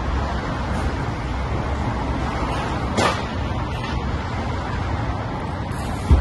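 Street traffic noise, a steady rumble of passing vehicles, with a brief sharp noise about three seconds in and a short low thump near the end.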